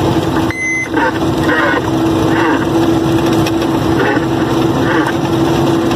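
Truck's diesel engine running steadily with a constant hum, heard from inside the cab while driving.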